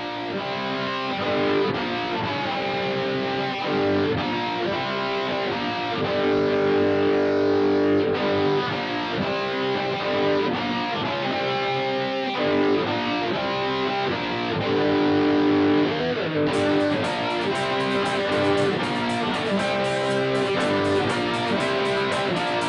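Rock band playing live: distorted electric guitars play an instrumental intro of held chords, and a steady beat with cymbal-like strokes joins about three-quarters of the way through.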